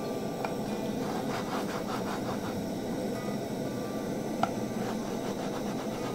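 Steady hiss of burger buns toasting in a hot non-stick frying pan, with a couple of light clicks as the buns are lifted and set back down.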